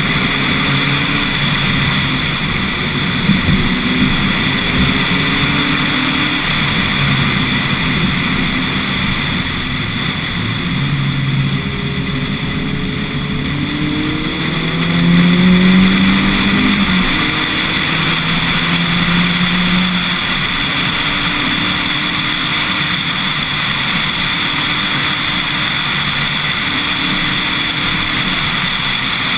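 Lotus Elise S1 111S's 1.8-litre Rover K-series VVC four-cylinder engine accelerating uphill through the gears, its pitch climbing and then dropping at each gear change. Heard from a camera on the car's nose under a steady rush of wind noise.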